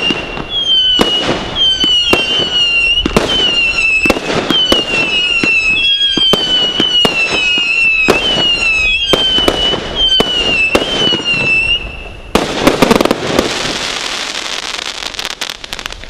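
A Brothers Pyrotechnics Fireworks Crazy barrage cake firing about one shot a second. Each shot gives a falling whistle about a second long, among sharp bangs and pops. About twelve seconds in, a loud, dense burst of crackling ends the volley and dies away.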